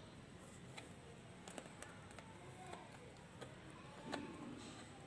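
Faint, scattered small clicks as a hand handles and turns a plant-filled basket pot, barely above near silence.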